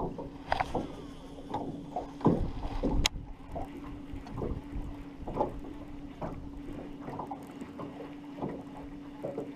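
Casting and reeling from a small aluminum boat: a baitcasting reel is cranked in, with irregular knocks and water lapping against the hull and wind on the microphone. A steady low hum runs underneath, and there is a sharp click about three seconds in.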